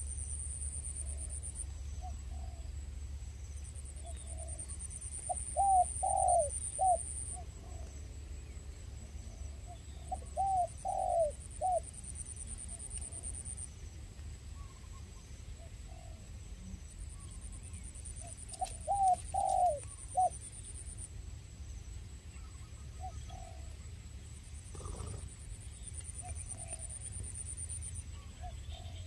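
A dove cooing in three phrases of four or five arched notes each, several seconds apart.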